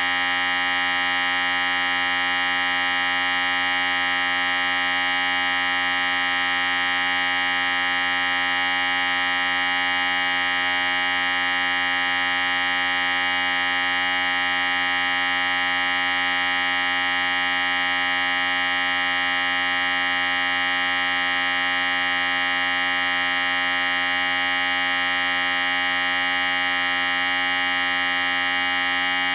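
Electric hair clippers running continuously with a steady, even buzz.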